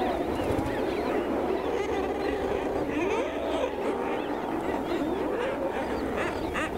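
Seabird breeding colony: a dense, continuous chorus of many overlapping calls, with a few sharp clicks near the end.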